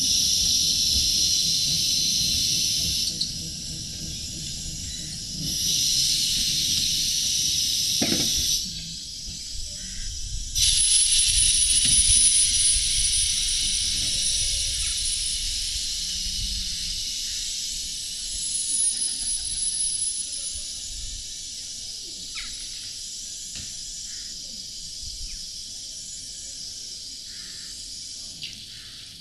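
Miniature 15-inch gauge steam locomotive standing in steam, blowing off steam with a loud hiss. The hiss breaks off and starts again twice in the first ten seconds, with a single knock about eight seconds in, then runs on steadily and slowly fades.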